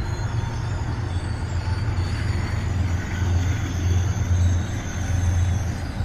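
Amtrak stainless-steel passenger cars rolling past along the platform, a steady low rumble that swells and fades slightly, with faint high-pitched steady tones over it.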